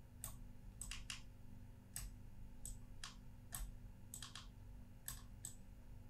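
Computer mouse clicking faintly: about a dozen short, irregular clicks, roughly one every half second and some in quick pairs, as anchor points are placed to draw a shape. A faint low hum runs underneath.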